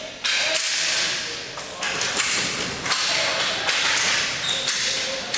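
Ball hockey play in an arena: sticks and the ball knocking and thudding against the concrete floor and boards, several sharp hits about a second apart, each trailing off in the hall's echo.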